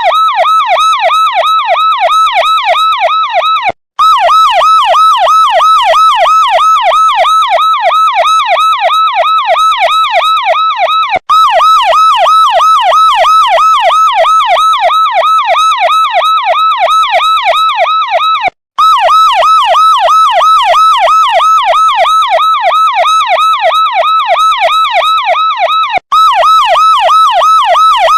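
Electronic police siren in a fast yelp, its pitch sweeping up and down several times a second. It cuts out for a split second about every seven seconds and starts again.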